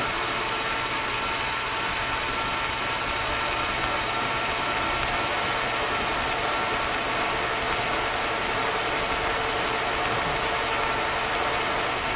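Metal lathe running steadily while it takes a light finishing cut of the last few thousandths, a constant gear whine over an even hiss.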